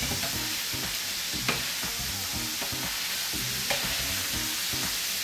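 Paella sofrito of meat, green beans and tomato sizzling steadily in a steel paella pan on raised heat, the water cooking off the tomato, while a metal ladle stirs it; twice the ladle clinks sharply against the pan.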